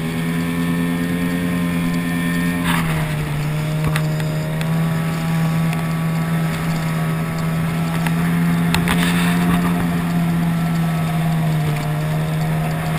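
Outboard motor of a small inflatable boat running at speed, a steady engine note over wind and water noise. The note drops slightly about three seconds in, with a short burst of noise there and another near nine seconds.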